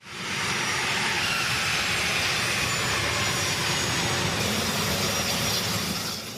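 A-10 Thunderbolt II ground-attack jet: a steady rushing, hissing noise with a faint whine, cut off abruptly near the end.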